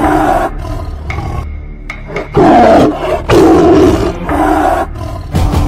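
Tiger roaring in several loud, rough bursts with short pauses between them, over a steady low rumble.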